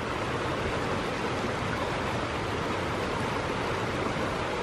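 Mountain creek rushing: a steady, even wash of water noise.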